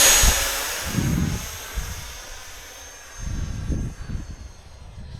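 Radio-controlled model of an English Electric Lightning jet flying away at full power just after launch. Its loud, rushing fan whine carries a thin high tone that fades steadily and slips slightly lower in pitch. Low rumbles come about one and three seconds in.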